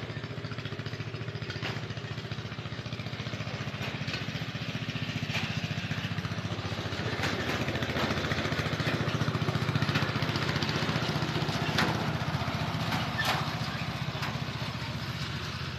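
Small engine running steadily with an even low hum, getting somewhat louder through the middle, with a few light knocks.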